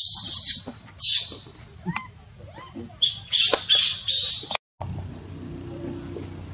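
Young macaques screaming: a run of loud, shrill, harsh shrieks while they wrestle. It stops abruptly about four and a half seconds in, and after that only a low steady background hum remains.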